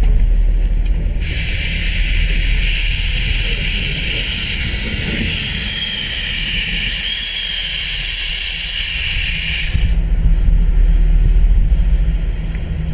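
Steam tank locomotive's safety valve blowing off: a loud, steady hiss of steam that starts about a second in and cuts off suddenly near the end, over a low rumble.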